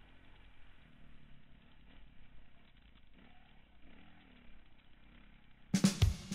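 KTM 530 single-cylinder four-stroke dirt bike engine, heard faintly, its pitch rising and falling as the throttle changes. Near the end a loud drum beat of music cuts in.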